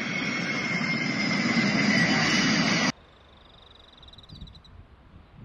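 Jet aircraft engines heard across an airfield: a steady rushing noise with a thin, high, steady whine. It cuts off abruptly a little under three seconds in, leaving only a faint low swish.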